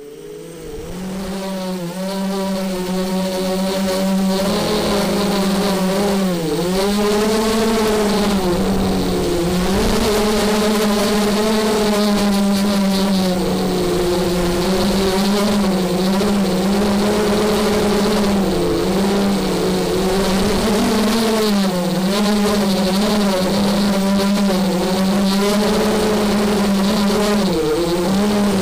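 Brushless motors and propellers of a small FPV quadcopter, heard from a camera on its frame. They spool up from silence over the first couple of seconds, then keep up a steady buzzing whine whose pitch dips and rises over and over as the throttle changes in flight.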